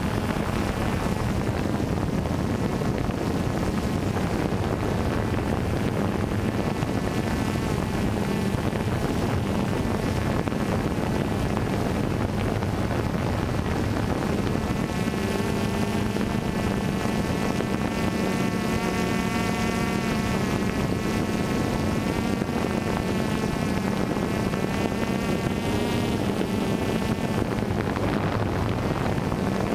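DJI Phantom 2 quadcopter's four brushless motors and propellers buzzing steadily in flight, heard close up. From about halfway through, a higher whine rises over the hum and wavers up and down in pitch as the motor speeds change, fading again near the end.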